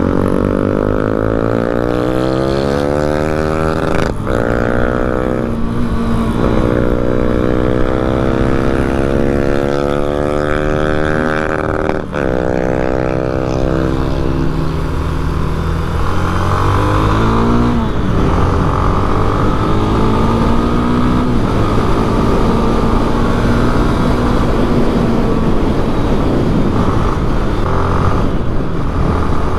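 Honda Twister's single-cylinder engine pulling as the motorcycle is ridden. The revs climb and drop at upshifts about four and twelve seconds in, then ease off and settle to a steadier cruise, with wind rush over it.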